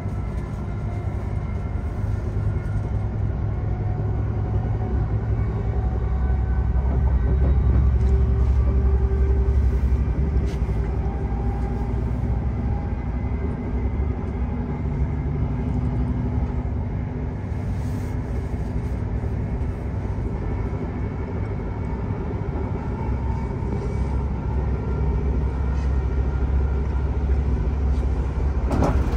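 Greater Anglia passenger train running at speed, heard from inside the carriage: a steady low rumble with faint humming tones above it. A single knock comes near the end.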